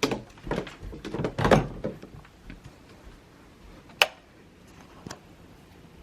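A closet door being handled and shut: a cluster of knocks and thuds in the first two seconds, then one sharp click about four seconds in and a fainter tap a second later.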